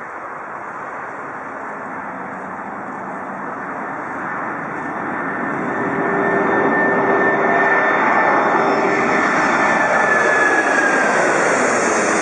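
Airbus A340 four-engine jet airliner at takeoff power, lifting off and climbing directly overhead. The engine noise grows louder about halfway through, and a high engine whine drops in pitch near the end as the jet passes over.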